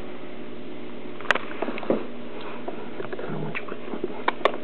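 A young puppy moving about and sniffing on a blanket: a few small scattered clicks and taps, two close together near the end, over a steady hiss.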